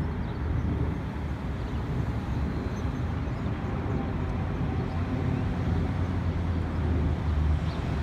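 Steady low outdoor rumble that swells and dips slightly, with a few faint, high, distant bird chirps.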